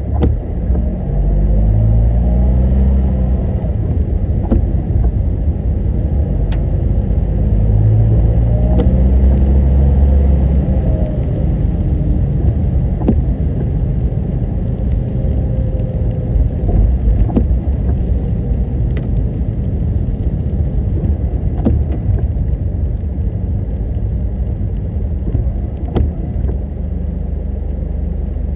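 Car on the road: a steady low rumble of engine and tyre noise, with the engine pitch rising and falling twice in the first half, and scattered sharp ticks throughout.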